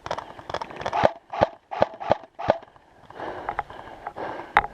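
Airsoft guns firing single shots in an uneven, scattered rhythm, about a dozen sharp pops, the loudest a little before the end.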